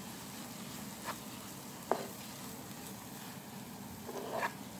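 Shredded chicken, chopped onion and green chilli sizzling in oil in a non-stick pan as they are stirred with a spatula, the onion being fried until golden. Two short sharp clicks come about one and two seconds in, and a brief rattle near the end.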